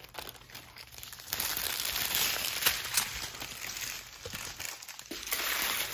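Plastic packaging crinkling and rustling as it is handled, with small crackles and clicks. It gets louder about a second in and eases off near the end.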